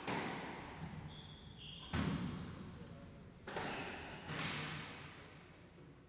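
Squash rally: the ball is struck by rackets and smacks off the court walls, four sharp hits with echoing tails about one to two seconds apart. Short shoe squeaks on the wooden floor come between the first two hits.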